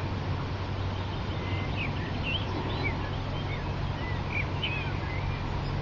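Small birds chirping in short, high, curling notes scattered throughout, over a steady low hum.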